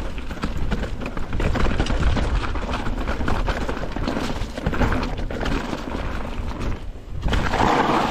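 Mountain bike clattering down a rough, rocky trail: tyres knocking over rocks and the bike rattling, a rapid run of irregular knocks over a low rumble, with a brief lull near the end.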